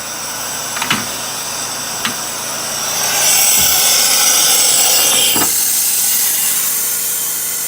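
Compressed air hissing steadily during a tool change on a CNC router, with two sharp clicks in the first two seconds. The hiss grows louder about three seconds in and cuts off suddenly about five and a half seconds in.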